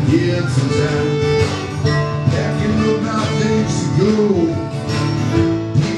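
Live country band playing an instrumental passage with acoustic guitar and fiddle.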